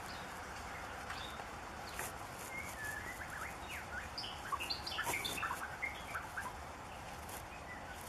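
White-rumped shama singing a short phrase of quick, varied whistled notes that slide up and down in pitch, in the middle of the clip, over a steady background hiss.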